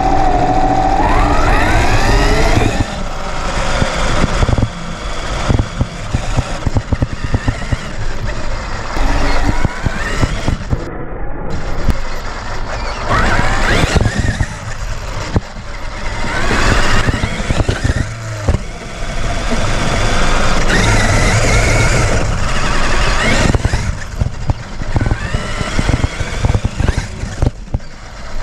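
Electric motor of a Traxxas RC truck whining and rising in pitch as it accelerates several times, over a constant rattle and knocking of the chassis and tyres on rough trail ground.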